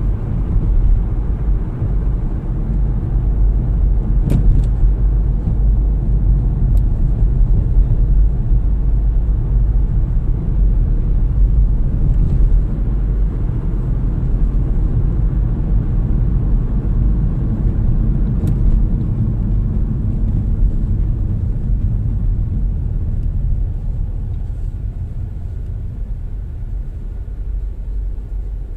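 Steady low rumble of road and engine noise from a car driving along, heard from inside the cabin. It eases off somewhat near the end as the car slows into a traffic queue.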